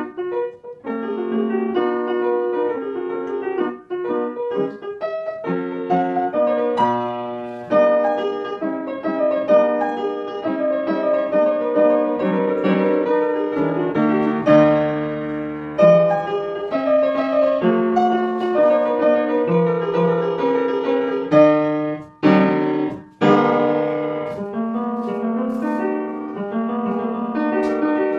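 Piano music playing: a steady stream of melodic notes.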